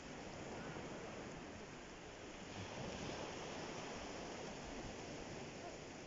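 Gentle Mediterranean surf: small waves washing up and drawing back over a sand-and-pebble shoreline, swelling a little about halfway through.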